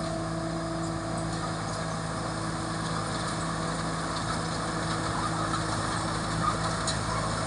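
Rice combine harvester's Hino J08C turbo diesel engine running steadily under load while harvesting, an even hum with a broad mechanical noise.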